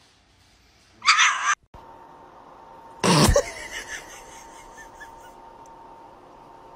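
Two short, sharp sneezes from dogs: a puppy's hissy sneeze about a second in, then a fuller, louder sneeze from a golden retriever about two seconds later.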